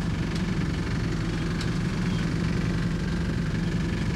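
A sailboat's auxiliary engine running steadily with a fast, even low pulse, the boat motoring under power while the wind is down.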